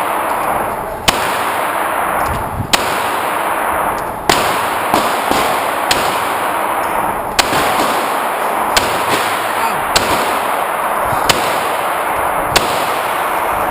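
Pistol shots fired one after another, about one every second and a half, roughly a dozen sharp cracks, with a loud steady rushing noise between them.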